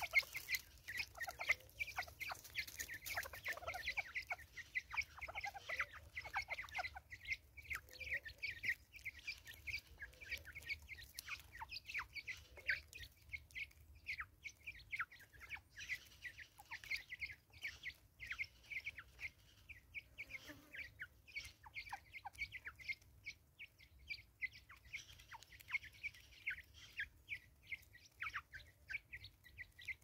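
A flock of Natal spurfowls feeding on grain on a tree stump: a steady patter of quick pecks with soft clucking, a little busier in the first several seconds.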